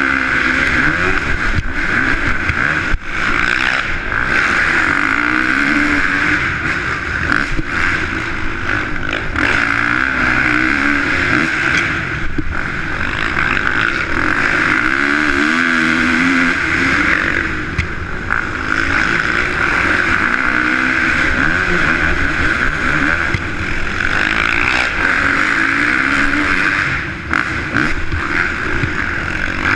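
Dirt bike engine heard on board from the rider's helmet, revving up and down repeatedly with the throttle through the turns and straights of the track.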